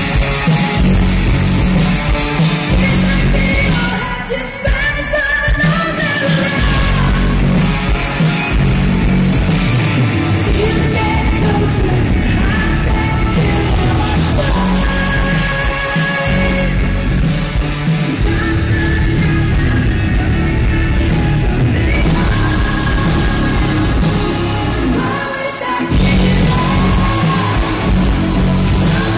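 Live symphonic metal band playing loud: a female lead voice singing over electric guitars, bass, drums and keyboards, recorded through a phone's microphone. The music thins briefly about four seconds in and again near the end.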